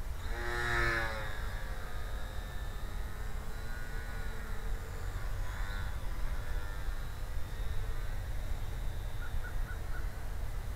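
Wind rumbling on the microphone, with the faint, steady high whine of a small RC plane's electric motor and propeller flying overhead. A short pitched call stands out about half a second in.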